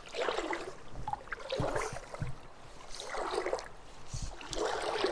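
Water splashing in four surges about a second and a half apart, over the steady rush of a river.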